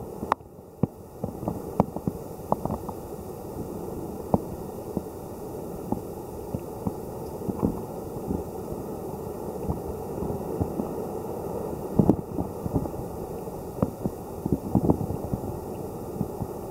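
Underwater sound picked up through a submerged camera in a shallow tide pool: a steady muffled low rumble with scattered small clicks and pops, one louder cluster about twelve seconds in.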